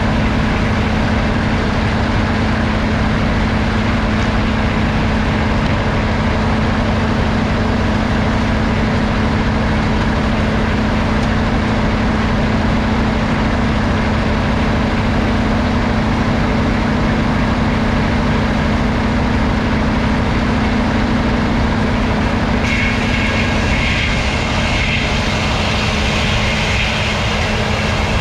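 A sawmill and its power unit running steadily, a loud drone with a constant hum. About 23 seconds in, a higher rasping noise joins for a few seconds and the hum sags, then the hum returns.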